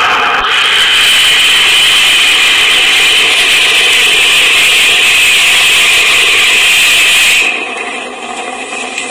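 SpaceX Falcon 9 first-stage booster's rocket engine firing loud and steady during its landing burn. It cuts off about seven and a half seconds in, once the booster has touched down, leaving a quieter hiss.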